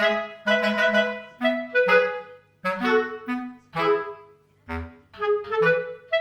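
Background music: a light tune of plucked or struck notes that sound sharply and fade, about two a second, over a low accompaniment.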